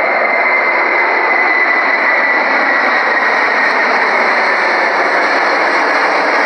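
Airliner cabin noise: a steady, loud rush of jet engines and airflow, with a faint high whine drifting slowly lower.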